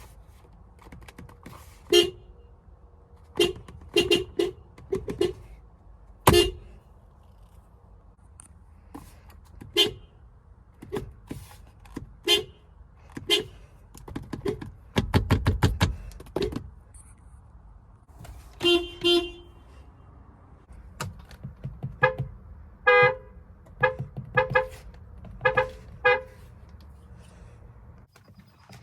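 Car horns giving short toots, singly and in quick pairs and runs. The pitch is lower in the first half and higher later on, as from more than one horn. About fifteen seconds in comes a rapid string of very short beeps.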